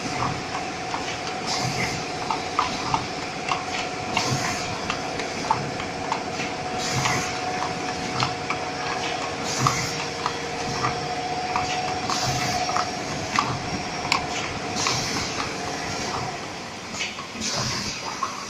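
Automatic capsule filling and sealing machine running: a steady mechanical clatter with frequent clicks, a short hiss about every two and a half seconds, and a steady whine that stops about fourteen seconds in.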